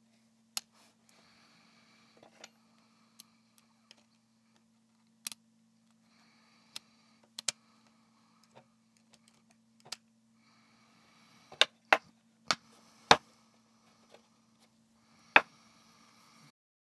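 Small sharp plastic clicks and taps from a handheld electronics device and its plastic case being handled and fitted together. The clicks are scattered, with a denser, louder run about two-thirds of the way through and one more near the end, over a faint steady hum and light rustling.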